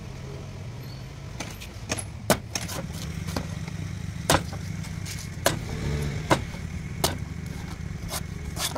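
A knife chopping into a young coconut's husk in sharp, separate strokes about a second apart, over a steady low motor hum.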